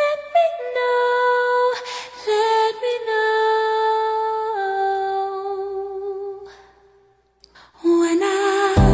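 Soundtrack music: a solo woman's voice sings a slow, wordless, unaccompanied melody of long held notes that step down in pitch. It fades away about seven seconds in, resumes after a short gap, and a full band with bass comes in at the very end.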